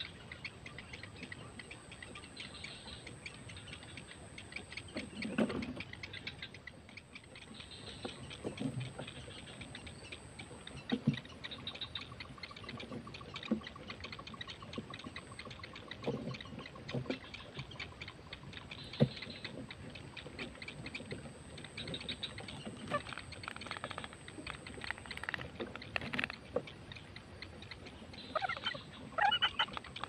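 Striated heron chicks in the nest giving rapid ticking begging calls, with scattered soft knocks and rustles of nest twigs as the adult heron shifts over them. A steady high whine runs underneath, and a burst of louder calls comes near the end.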